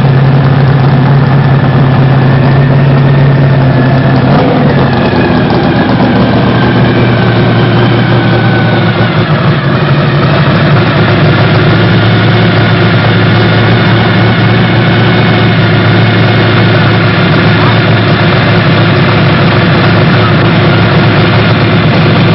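Dodge Challenger's Hemi V8 running loud and steady, its note dropping in pitch about four seconds in, as the car drives up toward and past the camera.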